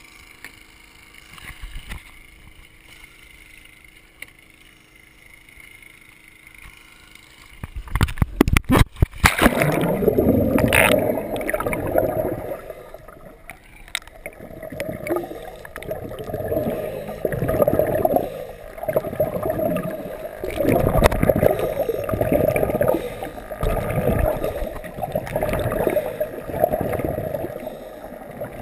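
A muffled splash and clatter about eight seconds in as the GoPro in its housing goes into the water, then the underwater sound of scuba breathing: repeated gurgling surges of regulator exhaust bubbles every couple of seconds.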